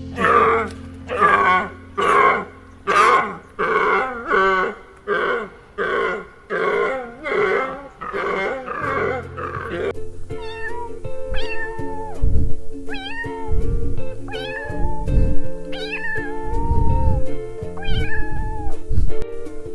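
Background music under an animal's loud, harsh calls, repeated about every two-thirds of a second. At about ten seconds it changes to shorter calls that bend up and down in pitch, coming about every second and a half, with heavy low thumps.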